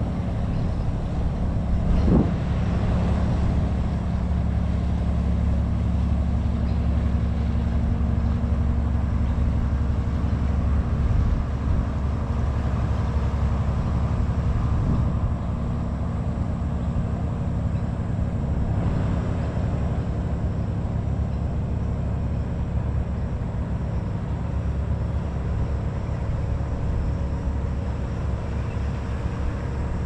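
Steady low engine drone with a constant hum, with one short knock about two seconds in.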